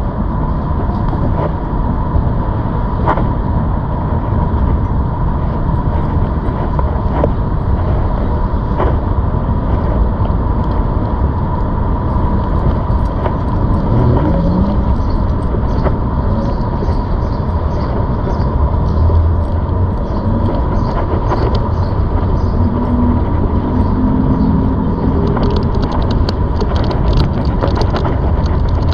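Continuous rumbling noise of riding a ZOOZ electric bike, with wind and tyre noise and a steady high whine throughout.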